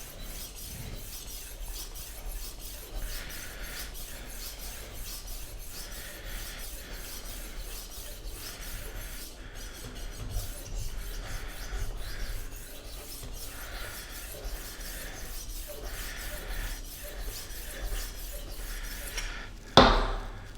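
Diamond-plated disc of a rolling knife sharpener grinding along a steel kitchen-knife edge in repeated even strokes, a steady rasping scrape with a swell on each pass. A single sharp knock comes near the end.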